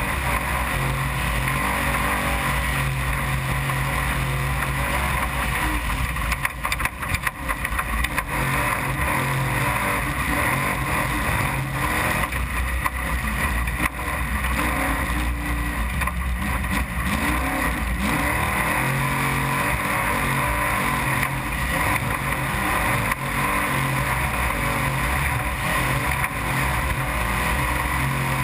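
Trophy truck's engine running hard at race pace, its pitch rising and falling with the throttle, over a steady rush of noise with a few rattles.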